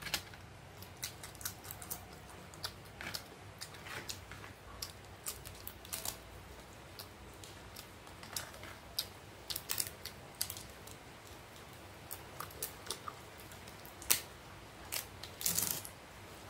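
Crisp fried papad crackling and crunching as it is broken up by hand over rice and eaten: irregular sharp crackles, with a denser burst near the end.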